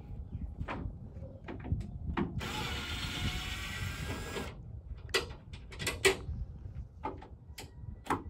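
A hand or power tool running for about two seconds, a dense mechanical whirring or ratcheting, followed by scattered sharp clicks and knocks of construction work.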